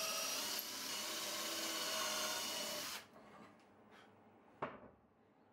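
Cordless drill-driver running steadily with a motor whine, driving into a pine cabinet door, then stopping abruptly about three seconds in. About a second and a half later comes a single sharp knock.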